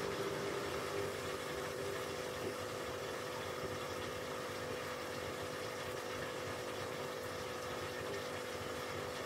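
Aquarium pump running with a steady hum, under the even hiss and bubbling of air streaming up through the tank water.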